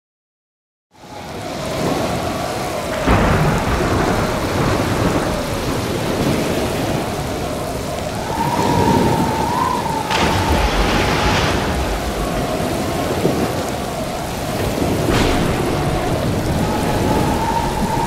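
Stormy-sea storm sound effect: dense rain and surf noise with a low rumble and a wavering whistling tone. Sudden thunder cracks come about three, ten and fifteen seconds in. It swells up from silence about a second in.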